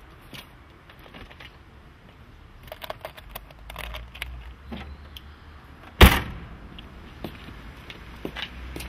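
A car's boot lid slammed shut about six seconds in, one loud thud, after a few seconds of light clicks and knocks around the car.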